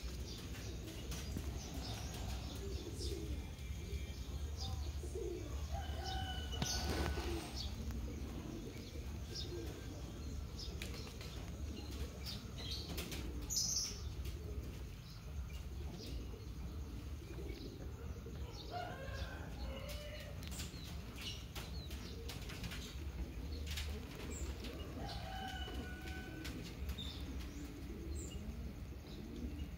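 Outdoor bird sounds: short chirps from small birds now and then, with doves cooing low, over a steady low rumble on the microphone and scattered soft clicks.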